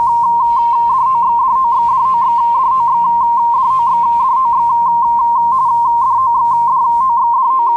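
Radioteletype (RTTY) signal sound effect: a loud tone that switches rapidly and irregularly between two close pitches, like data being keyed over radio. A faint low hum sits under it and drops out near the end.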